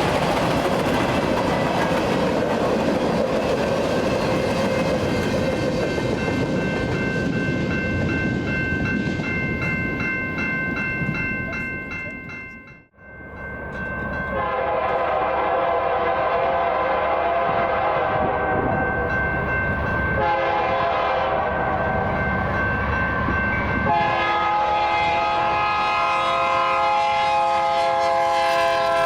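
Freight train cars rolling past in wind for the first dozen seconds, then after a brief fade, a BNSF diesel locomotive's multi-chime horn sounding two long blasts over its engine, the second dipping slightly in pitch as the locomotive passes.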